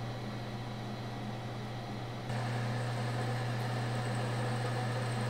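Electric machine spindle running with a steady hum and a strong low tone while a bit drills into a round steel part clamped in a vise. About two seconds in the sound steps up abruptly and gets louder as the twist drill cuts.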